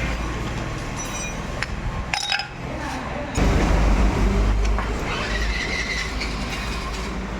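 Steady low rumble of a running vehicle engine or passing road traffic, with a few light metal clinks. The rumble fades briefly about two seconds in and returns louder about three and a half seconds in.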